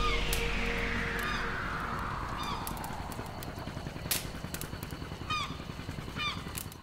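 Logo-sting sound effects: a whoosh sweeping down in pitch over about three seconds and fading, followed by scattered short chirp-like blips and a few sharp clicks.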